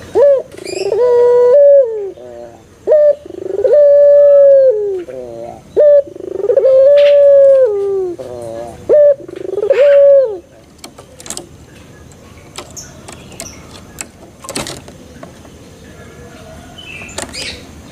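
A young puter pelung, a domestic Barbary (ringneck) dove about three months old, cooing close to the microphone: four phrases, each a short note then a long drawn-out coo. The cooing stops about ten seconds in.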